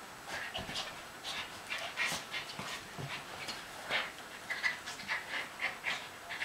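Two Schipperke dogs play-wrestling, one poking into a felt pet cave where the other is: a quick, irregular run of short dog noises, several a second.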